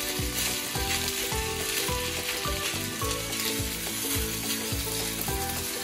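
Shrimp fried rice sizzling in a nonstick frying pan over high heat, stirred with a metal spoon in repeated strokes, about two to three a second.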